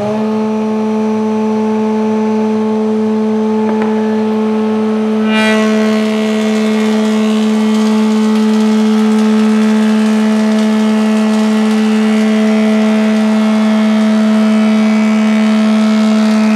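A thickness planer runs with a steady hum, having just spun up to speed. About five seconds in, a board is fed in and the cutterhead starts planing it, adding a loud rushing cutting noise that carries on over the hum while the board passes through.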